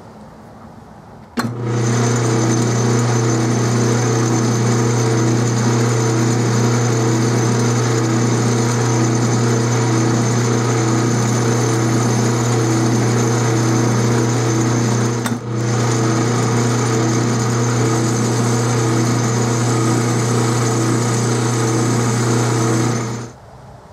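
A 12-inch Atlas metal lathe running at a steady speed with an even motor-and-drive hum while a carbide tool faces the end of a small sleeve held in the chuck. It starts abruptly about a second and a half in, drops out for a moment about two-thirds of the way through, and stops shortly before the end.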